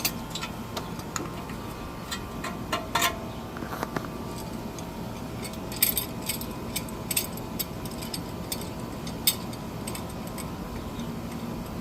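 Scattered metal clicks and clinks of a C-clamp being opened and fitted over a brake caliper, with the loudest click right at the start. A steady faint hum runs underneath.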